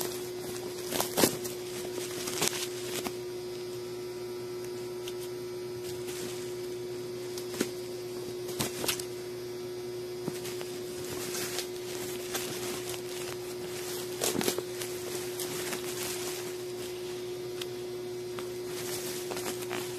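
A steady hum, with scattered knocks and rustles from cloth and a parcel being handled close to the phone's microphone; the sharpest knock comes about a second in, and a cluster of knocks comes around fourteen seconds.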